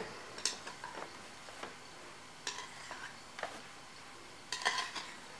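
Faint scattered clicks and scrapes of metal against the wire carding cloth of a drum carder, irregular, with a small cluster of them near the end.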